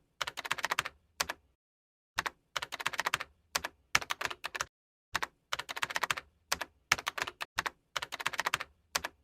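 Rapid keyboard typing clicks in four quick runs, each broken off by a short, completely silent pause.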